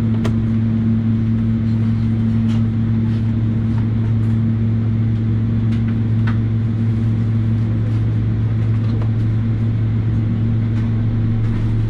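Cabin noise of a Boeing 777-300ER taxiing on its GE90-115B engines at idle thrust, heard from inside the cabin: a steady low drone with two constant deep tones. A few faint clicks sound over it.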